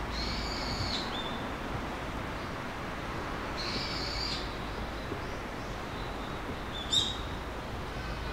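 Birds calling: two harsh, drawn-out calls, each just under a second and about three and a half seconds apart, with short high chirps between, and a sharper, louder call about seven seconds in. A steady low hum runs underneath.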